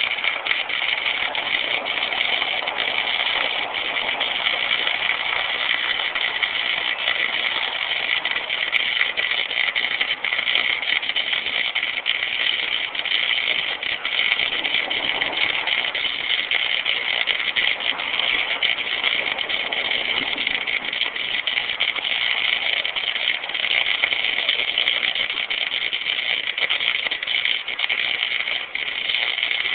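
Electric arc welding: a steady, continuous crackle and hiss of the arc.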